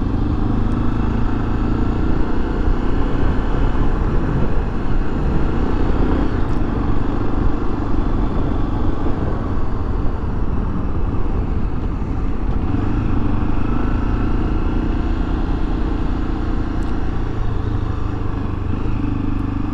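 Honda XRE300 single-cylinder four-stroke engine running as the bike is ridden at low speed in traffic. The engine note is steady, shifting a little in pitch a few times as the throttle changes.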